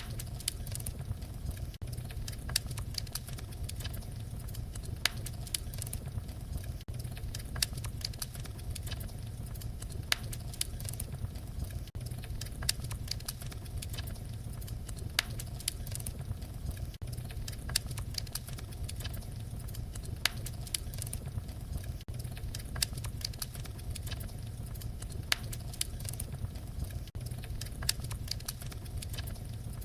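Wood fire crackling in a fireplace: frequent sharp pops and snaps over a steady low rumble.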